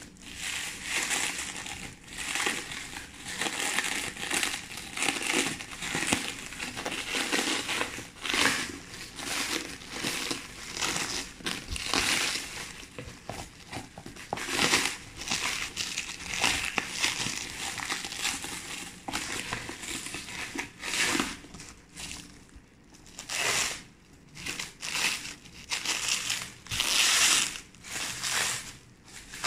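Clear plastic stretch wrap crinkling and crackling in irregular bursts as it is pulled off a cardboard box by hand.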